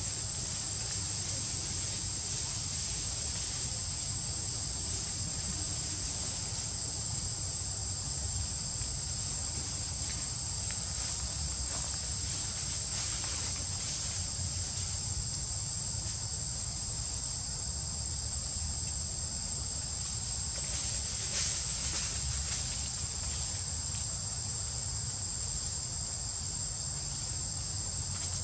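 Insect chorus droning steadily at a high pitch, over a low rumble.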